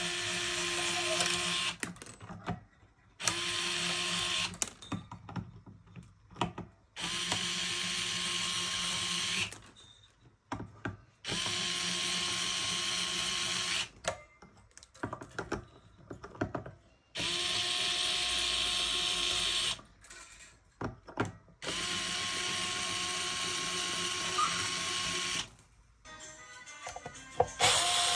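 Small power drill running in bursts of two to three seconds, about six times, with a steady whine at each burst. Short clicks and knocks fall between the bursts.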